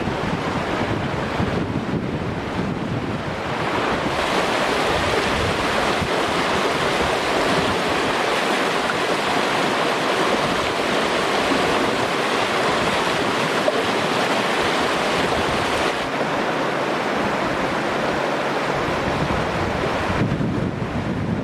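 River water rushing: a loud, steady roar of flowing water. Wind buffets the microphone in the first few seconds and again near the end.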